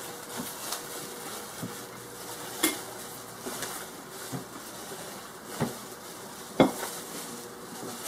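Glass carafe of a Mr. Coffee 12-cup coffee maker being handled: a scattered series of light clinks and knocks, the loudest about two-thirds of the way through as the carafe is set down on the table.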